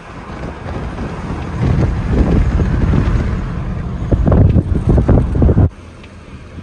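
Wind buffeting the microphone from a moving vehicle, a low rushing noise that builds and comes in gusts, then cuts off abruptly near the end.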